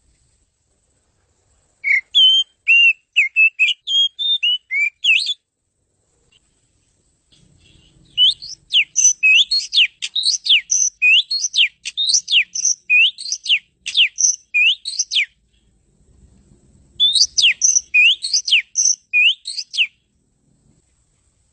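Oriental magpie-robin (kacer) singing: three bouts of rapid, varied whistled phrases made of sliding notes, separated by short pauses, with the middle bout the longest.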